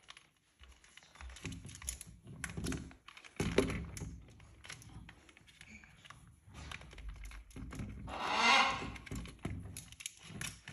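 Cockatoos' beaks clicking, tapping and knocking on a hollow plastic ball toy, an irregular run of small taps and rattles, with a louder, noisier stretch about eight seconds in.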